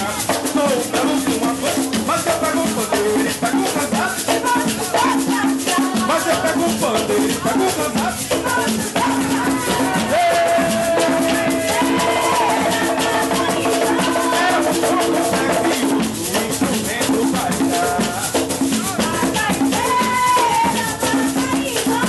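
Pernambuco coco music: a shaker keeps a fast, steady rhythm over drums, with a voice singing long, bending melody notes.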